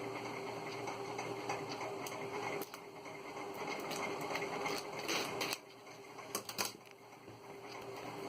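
Scattered clicks and rustles of a phone box and its packaging being handled during unboxing, over a steady background hum.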